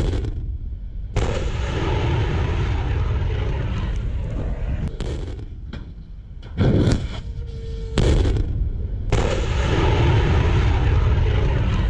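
Rockets launching from a multiple rocket launcher: each launch begins with a sudden blast and carries on as a long rushing roar lasting several seconds. New blasts come at the start, about a second in, and again about two-thirds of the way through.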